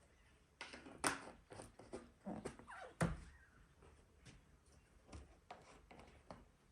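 Clicks and knocks of epoxy bottles and a mixing cup being handled on a workbench while two-part epoxy is measured out, with two louder thunks about one and three seconds in.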